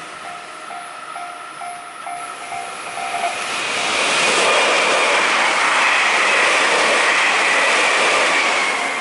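Level crossing warning bell ringing in a steady two-tone clang, then a train passes close by: the noise swells about three and a half seconds in and covers the bell, with a high whine that sinks slightly in pitch.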